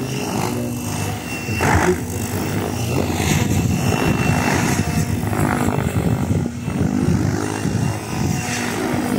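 Radio-controlled model helicopter flying aerobatics, its rotor and drive running steadily. The pitch shifts and the sound swells briefly as it manoeuvres.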